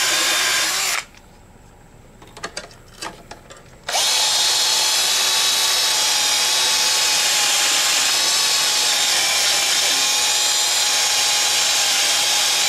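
Corded rotary tool with a wire cup brush scrubbing rust off the magnet on a lawn mower flywheel, a steady high whine. It stops about a second in, a few light clicks follow, then it starts again about four seconds in and runs on.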